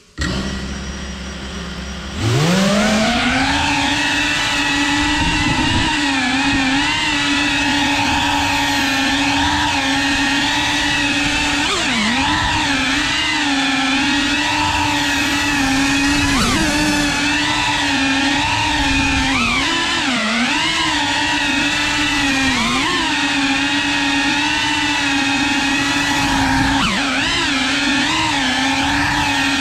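Cinewhoop FPV drone's motors and ducted propellers: a low hum at idle, then about two seconds in a quick rising whine as it lifts off, settling into a steady whine that dips and rises briefly with throttle changes.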